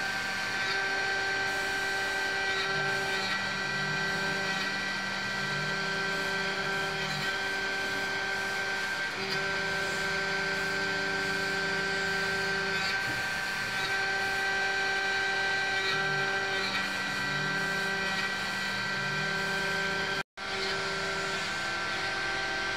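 CNC vertical milling machine's end mill cutting a metal block: a steady spindle whine, with lower motor tones that switch on and off and briefly glide in pitch as the table moves. The sound cuts out for a moment near the end.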